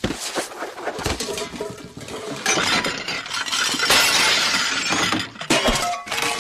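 A long cartoon crash sound effect: glass shattering and things clattering and breaking, loudest in the middle.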